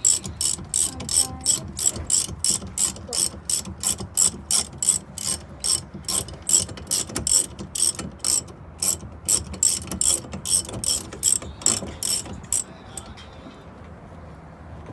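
Ratchet wrench clicking steadily, about three clicks a second, as a mounting bolt of a Honda Civic's rear wheel hub bearing assembly is backed out. The clicking stops near the end.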